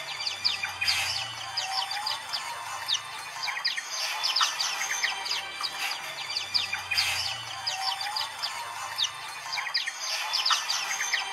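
A flock of white-eyes (pleci) chirping and twittering together, many short high chirps and quick notes overlapping without a break.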